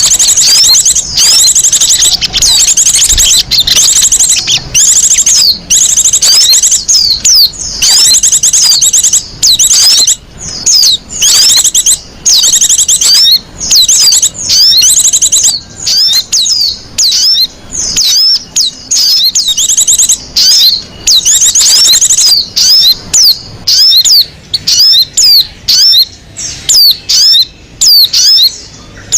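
Bird-lure recording of small songbirds chattering, played to draw in wild birds: loud, rapid high trills and sweeping chirps in quick bursts separated by short gaps.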